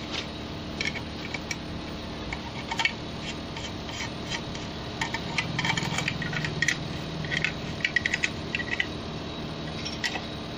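Light metallic clinks, taps and scrapes of a spanner and a cast brake master cylinder against the steel shell of a vacuum brake booster as the cylinder is fitted and its nuts are worked, busiest in the middle, over a steady low hum.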